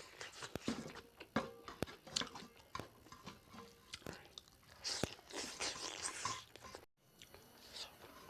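A person eating pig leg curry close to the microphone: wet chewing with irregular sharp crunching bites on the pork. The sound cuts out for a moment about seven seconds in.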